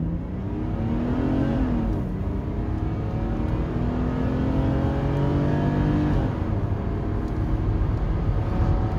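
Mercedes-Benz 260E W124's 2.6-litre inline-six accelerating hard from inside the cabin. The engine note climbs, drops as the four-speed automatic upshifts about two seconds in, climbs again, and drops at a second upshift about six seconds in before rising once more.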